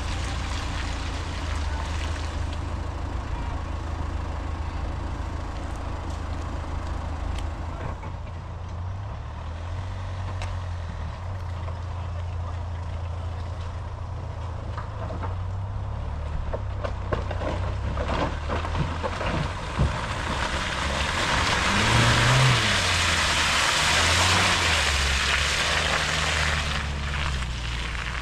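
4x4 engines revving and labouring through deep mud, the engine note stepping up and down with the throttle and climbing about two thirds of the way in. A rushing hiss swells over the second half.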